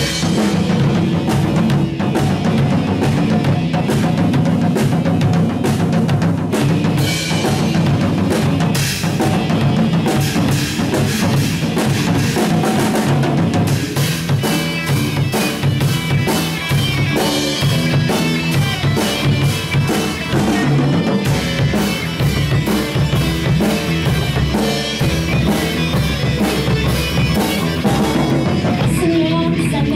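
Rock band playing live: a Premier drum kit keeps a steady beat of bass drum and snare hits, with electric guitar playing over it.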